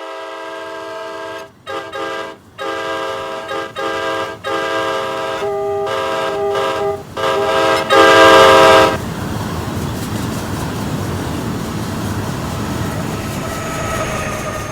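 Locomotive air horn sounding a chord of several notes in a run of about eight blasts, long and short, the last one the loudest, about nine seconds in. Then the steady rumble of the train rolling past, with a faint wheel squeal.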